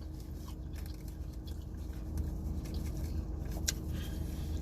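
Faint chewing and mouth clicks, with a sharper tick near the end, over the low steady rumble of a car cabin.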